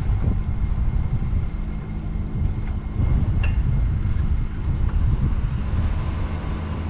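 SUV driving slowly over a rough dirt trail: the engine runs with a steady hum under uneven low rumbling and a few light knocks from the bumpy ground.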